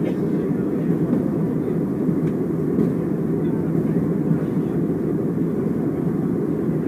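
Steady cabin noise inside an Airbus A321 airliner at cruise: an even, low rush of engine and airflow noise with no change in level.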